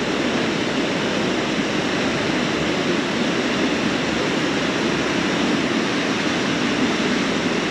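Steady rushing of a fast mountain river.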